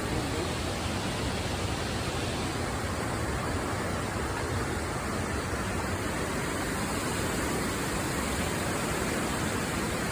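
A steady, even rushing noise with nothing standing out of it, of the kind wind on the microphone or nearby running water makes.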